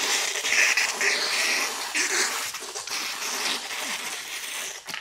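Cola glugging and fizzing out of an upturned plastic soda bottle as it is chugged, a steady hiss with gulping surges. It stops near the end.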